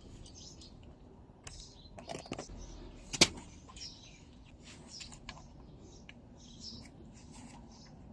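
Birds chirping on and off, with a few clicks and one sharp, loud click about three seconds in.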